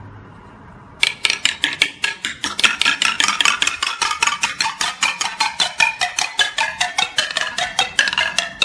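Balls dropping through a wooden spiral-leaf ball-drop tree toy, clattering from leaf to leaf in a fast run of bright wooden clicks, about six a second, with a ringing, chime-like tone. The clicks start about a second in.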